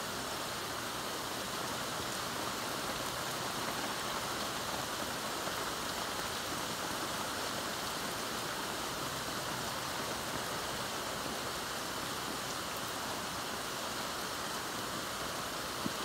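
Heavy thunderstorm rain falling steadily: an even, unbroken hiss of downpour.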